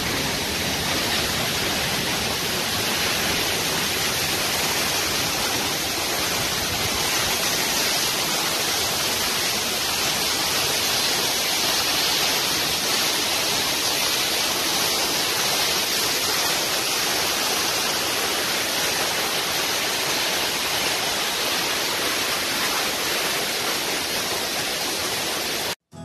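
Waterfall pouring into a rock pool: a steady, even rush of falling water that cuts off suddenly near the end.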